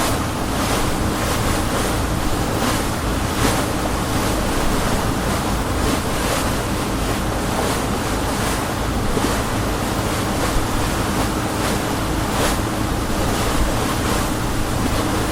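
Motor boat running steadily under way: a low engine drone under a continuous rush of water and wind, with a few brief splashes.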